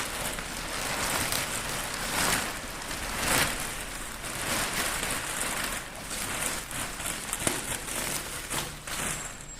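Rustling, crinkling packaging being handled and pulled about, with scattered knocks and scrapes.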